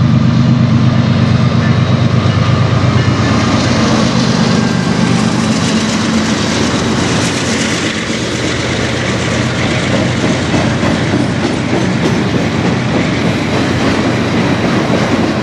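CN freight train passing at close range: the diesel locomotives' engines drone loudly for the first few seconds, then fade as the autorack cars roll by with a steady rumble and clickety-clack of wheels over rail joints.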